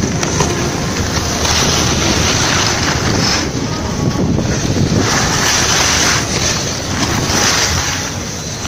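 Snowboard sliding and carving on packed snow: a steady scraping hiss that swells into stronger surges with each turn, about three times. Wind rushes over the moving microphone.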